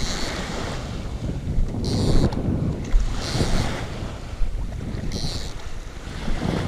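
Wind buffeting the microphone over small waves lapping against the boat, with a short hiss recurring every second or two.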